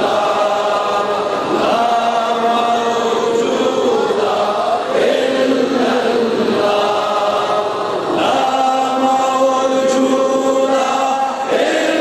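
A man's voice chanting an Islamic zikr and dua, melodic and unaccompanied, in long held notes that bend in pitch and break off every three seconds or so.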